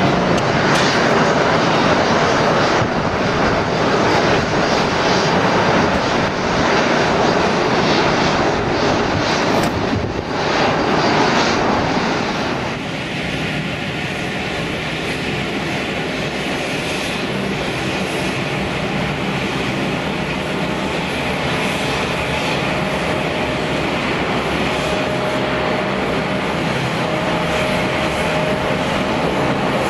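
Cargo jet engines, loud and steady. About 13 seconds in the sound cuts abruptly to a quieter engine noise with a steady whine.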